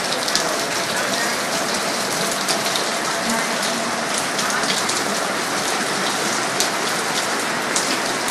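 Heavy rain falling steadily, a dense hiss with a fine patter of individual drops striking nearby surfaces.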